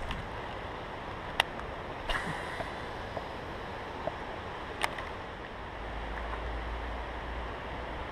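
Steady outdoor hiss of wind on the microphone, with a low wind rumble that picks up about six seconds in. A few sharp ticks, three of them clearest, come from the baitcasting reel and tackle being handled as the lure is worked back after a cast.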